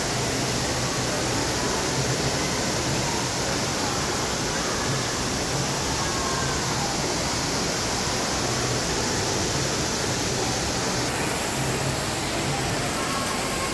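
Indoor fountain jet spraying up and splashing back into its pool: a steady rush of falling water, with faint voices in the background.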